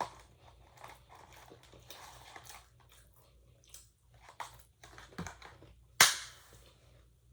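Close-miked mouth sounds of a person chewing and biting food, a run of small irregular smacks and crunches, with one much louder sharp sound about six seconds in.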